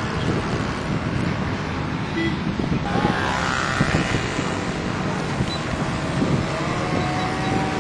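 Engine of a radio-controlled Yak-54 model aeroplane droning steadily in flight, under a heavy rumble of wind on the microphone.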